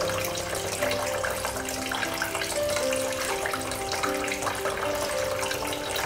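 Water from a small tabletop fountain trickling steadily from its spout into the pebble-lined basin, its flow driven by a submersible pump. Background music of slow, held melodic notes plays over it.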